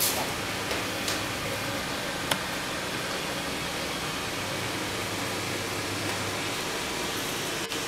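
Steady hiss of background noise, with a couple of faint clicks early and one sharp tick about two and a half seconds in.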